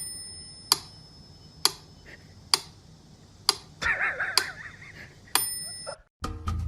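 Clock-like ticking: six sharp ticks a little under a second apart. A short wavering, warbling sound comes between the fourth and fifth ticks.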